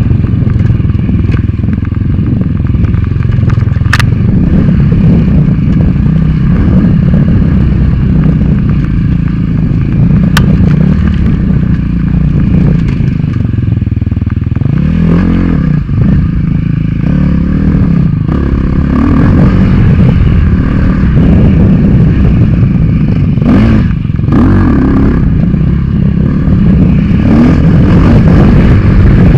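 Dirt bike engine ridden hard on rough trail, heard from the bike itself: the revs keep rising and falling with the throttle, with a short drop and climb about halfway through and again later. A couple of sharp clicks and knocks from the bike over the rough ground.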